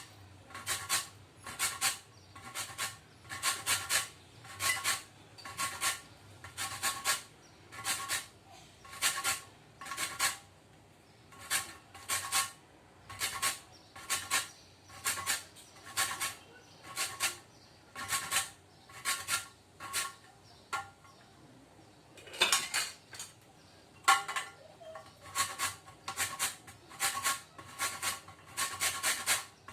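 Lemon peel being rubbed across a fine metal grater to zest it: a steady run of rasping strokes, a little more than one a second, each with a faint metallic ring. The strokes pause briefly about twenty seconds in, then carry on with a couple of louder ones.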